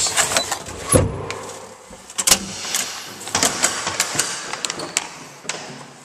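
Handheld camera handling noise: rustling with scattered sharp clicks and knocks, and a low thump about a second in.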